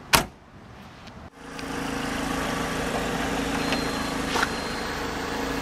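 A sharp click as the car door is unlatched, then, after an abrupt cut about a second in, a steady hum of an idling engine with a faint tick or two.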